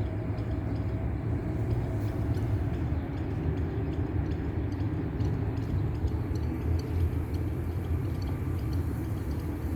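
Steady low rumbling noise, with no bird calls standing out.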